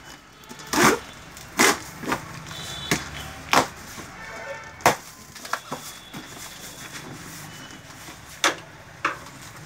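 A taped cardboard carton being slit and its flaps torn and pulled open: a series of short, sharp rips and scrapes of cardboard and packing tape, about six loud ones with quieter rustling between.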